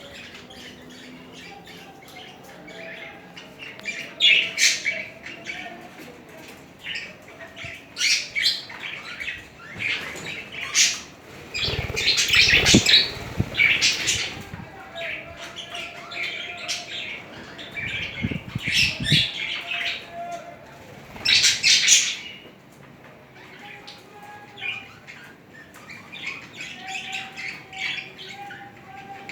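Budgerigars chattering and warbling, with louder squawking bursts now and then, and wings flapping in short bursts about twelve seconds in and again around eighteen seconds.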